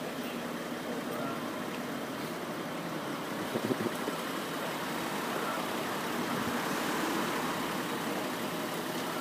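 Steady motor vehicle and road traffic noise, swelling for a few seconds past the midpoint. A few low thumps come about three and a half seconds in.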